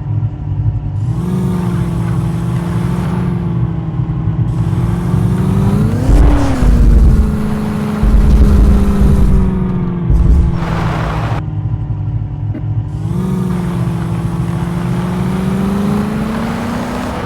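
A Landi jeep's engine running steadily, revving up briefly about six seconds in and again near the end. Heavy low rumbling surges come and go over it.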